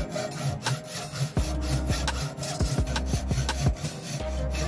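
A hand tool scraping on wood in repeated short strokes, over electronic background music with deep sustained bass notes and kick drums.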